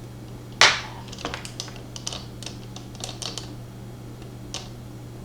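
Light clicks and taps of small objects being moved and set down on a hard surface, with one sharper knock about half a second in. A steady low hum runs underneath.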